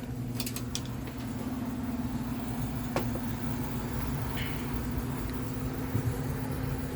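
Goodman air handler's blower running steadily, a constant electric motor hum over airflow rumble, with a few light clicks.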